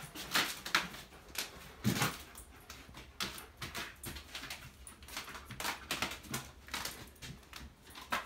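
Irregular footsteps with small knocks and creaks on the floor of an old house, one heavier thump about two seconds in.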